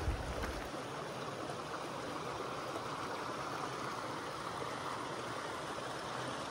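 Shallow mountain creek running over bedrock and spilling down a small rock ledge: a steady rush of water.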